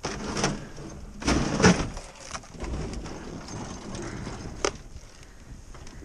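Handling noise as a snowblower, its engine off, is pulled backwards out of a wooden shed: two bursts of scraping and rustling in the first two seconds, uneven rustling after, and a single sharp click later on.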